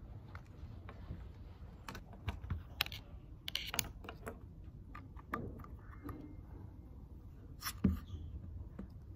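Scattered small clicks, taps and rustles of desk gear being handled and set down: a pen tablet with its cable, an external hard drive and a USB cable, over a low steady room hum. The loudest knock comes near the end.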